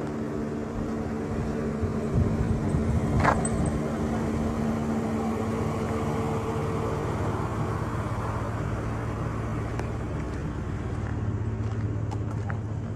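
A motor vehicle's engine running steadily with road noise; its hum drops to a lower pitch about halfway through. A single short sharp knock about three seconds in.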